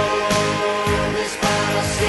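Christian worship song playing: a band with a steady drum beat under held chords.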